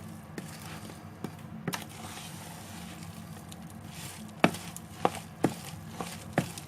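Sharp knocks and clicks of a utensil against a dish while the harissa is handled: a few faint taps early on, then five louder knocks in the second half, with a soft scraping hiss between.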